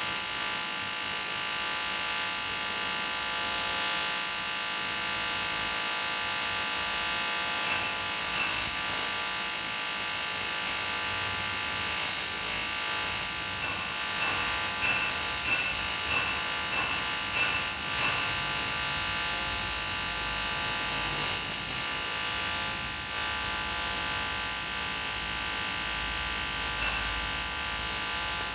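AC TIG welding arc on an aluminium motorcycle cylinder block, buzzing steadily with a constant high hiss.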